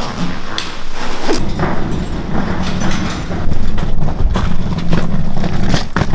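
A wheeled travel bag rolled over stone tiles and pavement: a low rumble from the wheels, with sharp knocks as it bumps over joints and edges.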